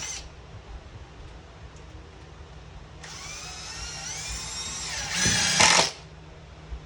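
Power drill driving a #8 x 1.75-inch GRK screw into shower-base sheathing. A brief blip at the start, then the motor winds up in pitch for about two seconds and is loudest for the last half-second as the screw goes home, stopping suddenly about six seconds in.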